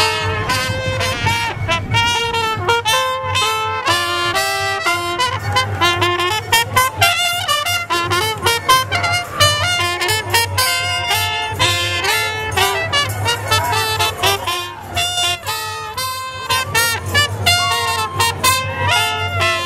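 Two trumpets playing a melody together in short, separate notes.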